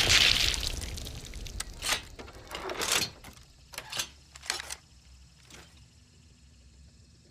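The fading tail of an explosion from a bomb-launcher sound effect, followed by about eight scattered sharp cracks and clatters over the next few seconds that thin out and stop.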